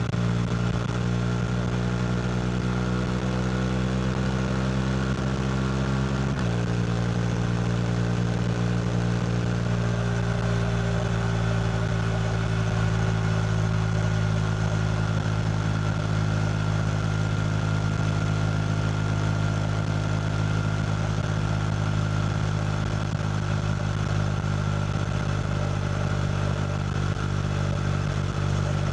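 KTM RC 390's single-cylinder engine through a Two Brothers slip-on exhaust, running at a steady speed. Its note creeps up slightly, shifts suddenly about six seconds in, then holds steady.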